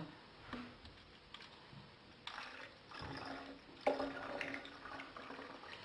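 Citric acid cleaning solution being poured into a spray bottle: a faint liquid pour that comes in short spells, louder about two seconds in and again near four seconds, with a few small clicks.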